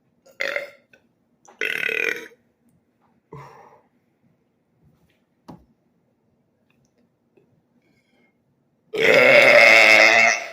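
A man burping: two short burps in the first couple of seconds and a smaller one around three and a half seconds in, then a long, loud burp starting about nine seconds in, the loudest of them.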